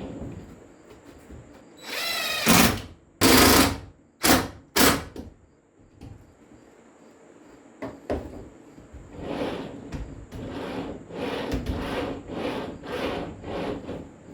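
Power drill run in several short, loud bursts in the first few seconds, the first with a motor whine. Later comes a quieter, steady series of short strokes at about two a second.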